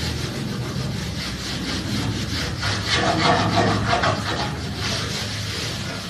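Quick repeated scraping strokes across a table top, dried screen-printing ink being scraped off the surface.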